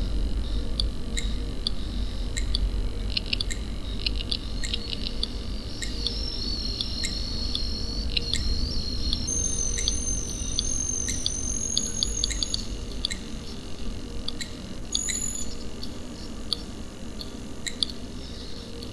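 Electronic sound installation of many small light- and sound-making components giving out scattered sharp clicks and high, wavering electronic tones. A second, higher tone joins about halfway through and stops a few seconds later. Its sounds come from a feedback circuit in which light and sound affect each other.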